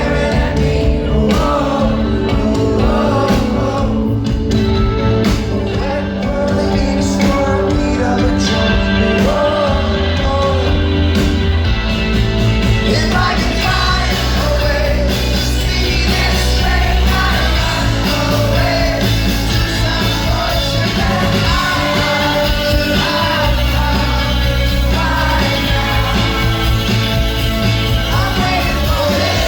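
Rock band playing live with a lead singer, loud and continuous; the band fills out with a heavier low end about twelve seconds in.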